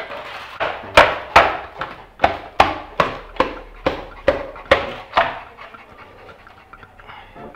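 A Boerboel dog panting hard close to the microphone: about a dozen quick, loud breaths, roughly two and a half a second, that stop after about five seconds.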